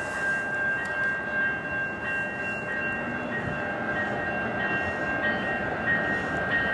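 A train running by: a steady rumble with a thin, steady high-pitched tone held over it.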